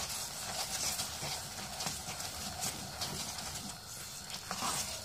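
Wooden spatula stirring and mashing a thick bread halwa paste in a non-stick pot, with irregular knocks and scrapes against the pan over a faint frying sizzle.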